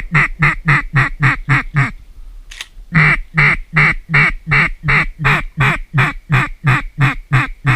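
Duck call blown in two fast runs of short, evenly spaced quacks, about four a second, with a brief pause near two seconds in: a hunter's comeback calling at a bird that was hit and flew off.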